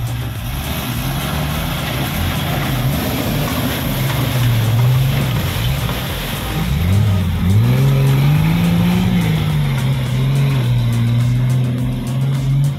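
Off-road buggy's engine revving hard under load as it churns through deep mud. The pitch wavers, climbs sharply about seven seconds in, falls back and then holds.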